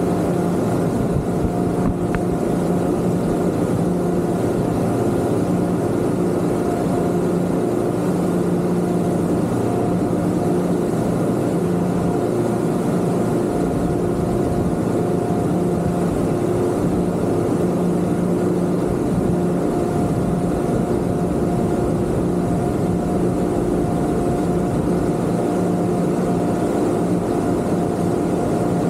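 Twin Yamaha 250 V6 outboard motors running steadily under way: an even engine drone over a broad rushing noise, with no change in pitch.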